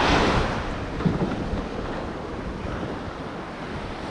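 Small waves washing onto a sandy beach, with wind rumbling on the microphone; the hiss of surf is loudest at the start and eases off after a second or so.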